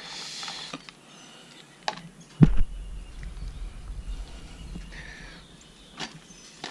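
Handling noise while fetching a handful of wood chips for the smoker: a brief rustle, one loud thump about two and a half seconds in, and a few light clicks.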